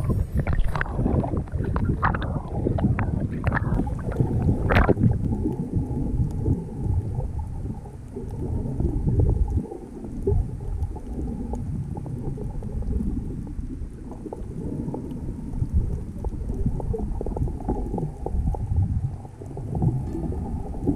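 Water sloshing and splashing around a GoPro Hero 5 at the surface for the first few seconds, then a steady muffled low rush of water as the camera is held underwater.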